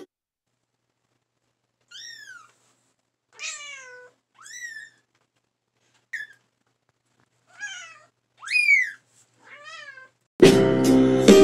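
Very young kitten mewing: about seven high-pitched cries, each rising and falling, spread over several seconds with the loudest near the end. These are the calls of a kitten stranded in a bathtub, crying for its mother. Music cuts back in near the end.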